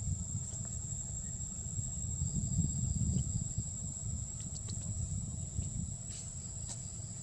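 Steady high-pitched insect drone, with a low rumble underneath and a few faint clicks.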